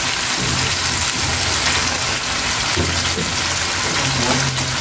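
Whole puti fish frying in hot oil and onion masala in a pan: a steady sizzle.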